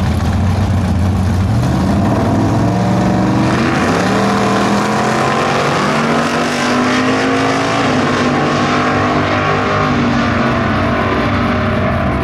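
Two drag cars' engines revving on the starting line, then launching at full throttle about three and a half seconds in. The engine note climbs and drops back with each gear change as the cars run down the strip.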